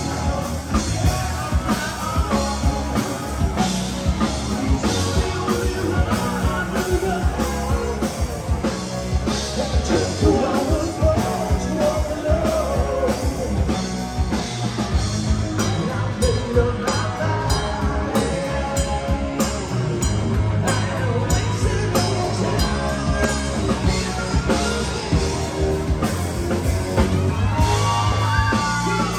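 A rock band playing a song with a singer over drums and guitar, with a steady beat.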